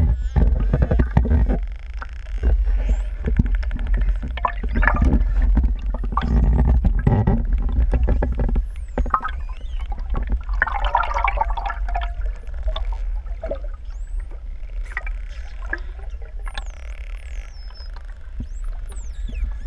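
Pantropical spotted dolphins whistling and clicking underwater: scattered high whistles that glide up and down, and many short clicks that are densest in the first half, over a steady low underwater rumble.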